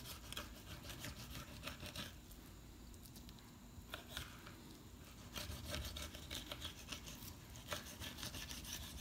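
Fillet knife sawing through a raw flounder fillet against a wooden cutting board: a run of quick rasping strokes, a lull of about three seconds near the middle, then more strokes.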